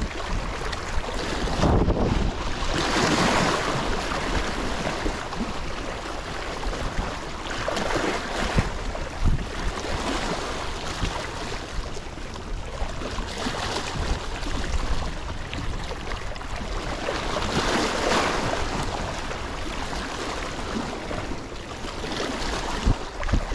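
Small waves washing and splashing against shoreline rocks, surging about every five seconds, with wind buffeting the microphone.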